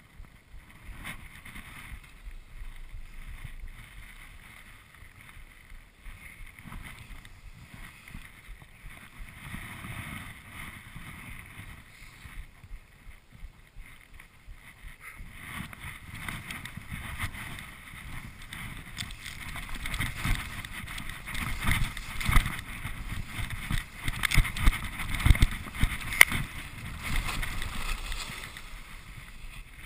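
Skis sliding and scraping over snow on a descent, with wind rushing across the camera microphone. Quieter at first, then louder and rougher from about halfway, with a run of sharp scrapes and knocks.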